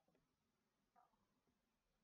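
Near silence: room tone, with one faint, brief sound about a second in.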